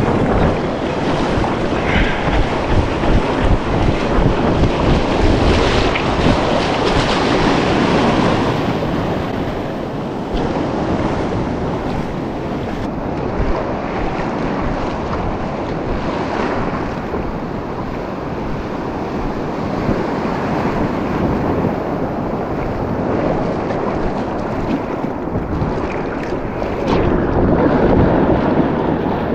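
Ocean surf breaking and washing on the shore, with wind buffeting the microphone. The wash swells louder a few seconds in and again near the end.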